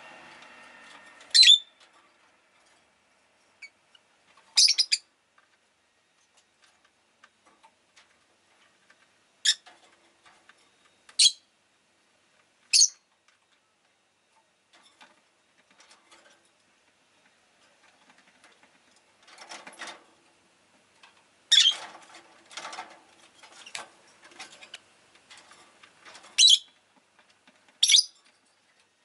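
Rosy-faced lovebird giving short, sharp, high-pitched chirps, single calls spaced a few seconds apart. About two-thirds of the way through there is a run of softer, scratchy sounds between the chirps.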